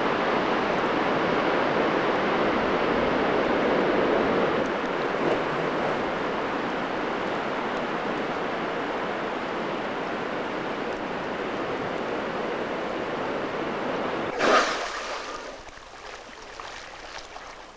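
Ice calving off a tidewater glacier face and collapsing into the sea: a steady rushing noise like heavy surf. About three-quarters of the way through it gives way, after a brief louder burst, to a quieter water sound.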